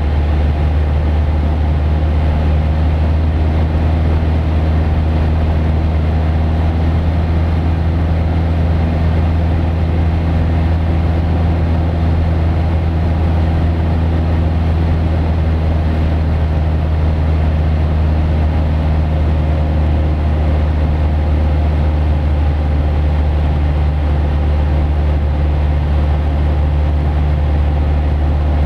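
Cessna 172P's four-cylinder Lycoming O-320 engine and propeller droning steadily at constant power, heard from inside the cabin.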